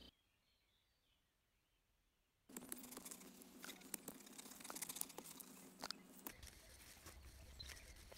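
Near silence for about two and a half seconds, then a short-handled hoe chopping into loose garden soil: irregular crunching strikes with soil scraping between them.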